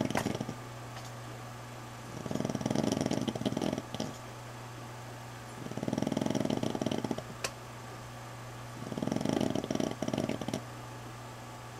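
A sleeping dog snoring: four snores in a row, one about every three seconds, each lasting one to two seconds, over a steady low hum.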